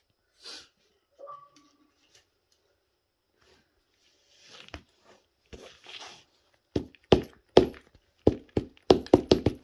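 Heeled leather boots trampling a chocolate yule log on a wooden floor: faint squishing and scraping of the crumbling sponge cake at first, then from about seven seconds in a quick run of sharp heel knocks, several a second, as the heel stamps through the crumbs onto the floorboards.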